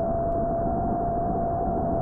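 Motors and propellers of a 4-inch FPV quadcopter whining at one steady high pitch over a rushing noise.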